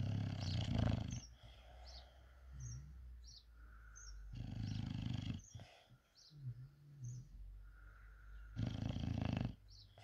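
English bulldog snoring in deep sleep: three loud snores about four seconds apart, with softer breaths between them.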